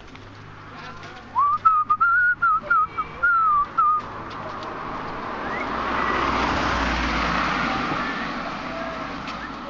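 A short wavering whistle in several broken notes for the first few seconds, then a car passing close by, its engine and tyre noise swelling and fading away.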